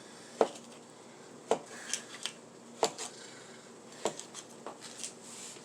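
Kitchenware knocking and clinking as a bowl and its contents are handled during rinsing of cut sweet potato and plantain pieces: about eight sharp, irregular knocks, the loudest near the start.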